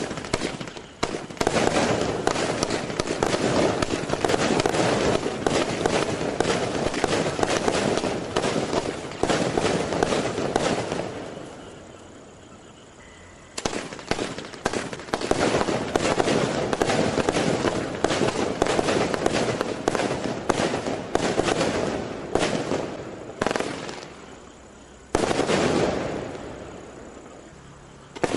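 Fireworks going off in dense, rapid crackling and popping, in three long runs that each die away before the next begins.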